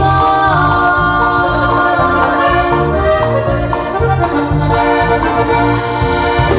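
Live band dance music: an instrumental passage, a melody of held notes over a steady, rhythmic bass line.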